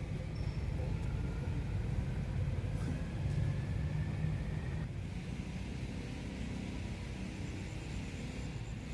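Steady low rumble of outdoor background noise, with faint thin tones higher up.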